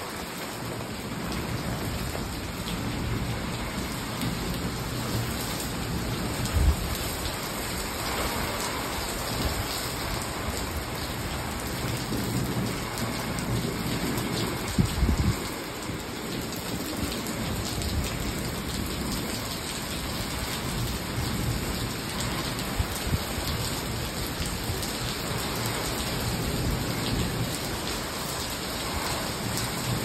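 Heavy rain pouring steadily onto a stone patio and swimming pool, with strong gusting wind. Two brief low thumps or rumbles stand out about 7 and 15 seconds in.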